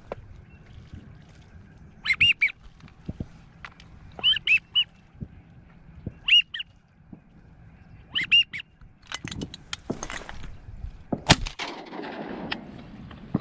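Short rising-and-falling pintail whistles, in twos and threes every couple of seconds. About 11 seconds in, a single loud shotgun blast with an echo trailing off, after some smaller clicks and rustles.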